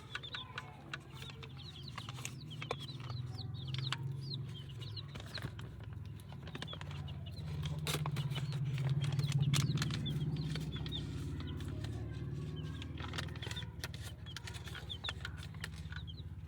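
Young chicks peeping in many short high chirps, with hens clucking, over a low steady hum that swells to its loudest about halfway through.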